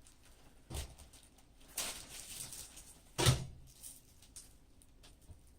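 Computer parts and tools being handled: a few separate knocks and clatters, the loudest about three seconds in, with some rustling and light ticks between.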